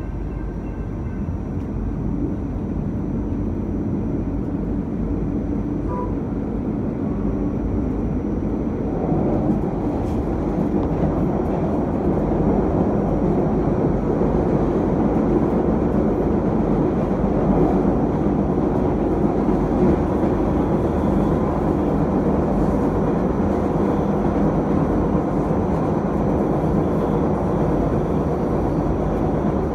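Cleveland RTA Green Line light rail train running along the track, heard from on board: a steady rumble of wheels and running gear that grows louder over the first dozen seconds, then holds steady.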